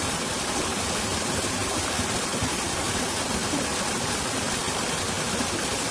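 Steady, even rushing hiss that holds the same level throughout, with no distinct events in it.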